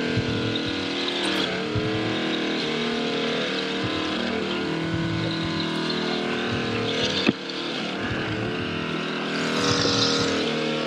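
Boat engine running steadily, with a hiss over it; the engine sound dips briefly about two-thirds of the way through, and a short rush of higher hiss comes near the end.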